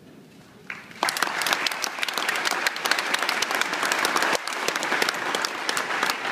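Audience applauding: many hands clapping together, starting suddenly about a second in.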